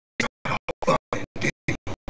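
Background music chopped into short stuttering fragments that cut in and out several times a second, with dead silence between them.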